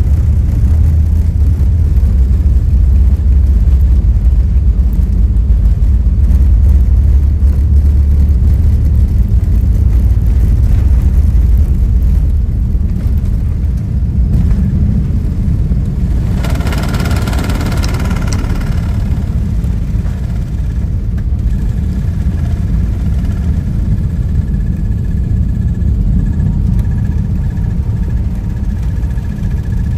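Cabin noise of an Airbus A380 on its takeoff roll and climb-out: a heavy, steady low rumble from the engines at takeoff power and the runway, easing a little about halfway through. About 17 seconds in, a short burst of higher-pitched mechanical sound rises over the rumble, and a faint steady high tone runs through the last part.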